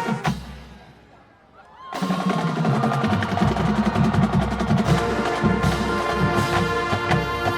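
Marching band's drumline and brass stop together on a hit that rings away into a short pause. About two seconds in, the full band comes back in loud, with a steady drum beat under the horns.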